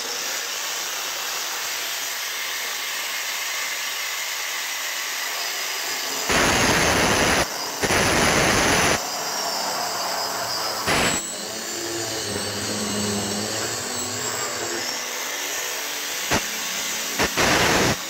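Power tool spinning a dry diamond core drill bit, running steadily, with loud grinding spells as the bit cuts: a long one about six seconds in, broken by a brief dip, and shorter ones near eleven seconds and twice near the end.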